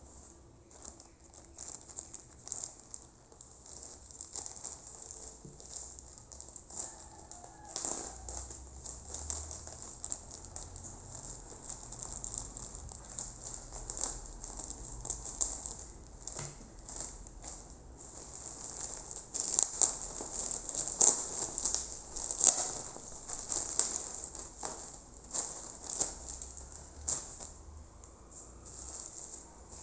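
A plastic courier mailer rustling and crinkling as it is cut open with scissors and pulled apart, then a bubble-wrapped parcel being handled. It is a continuous run of small crackles and crinkles, loudest about two-thirds of the way through.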